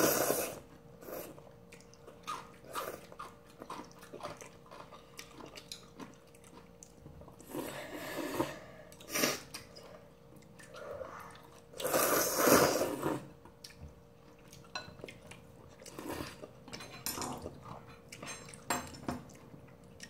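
People eating instant jjamppong ramen: chewing and slurping noodles, with chopsticks and a spoon clicking against ceramic bowls. Two longer slurps come about 8 and 12 seconds in.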